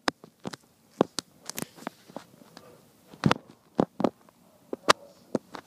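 Irregular sharp clicks and taps on a hardwood floor from a kitten chasing and batting a small white ball, with uneven gaps between them.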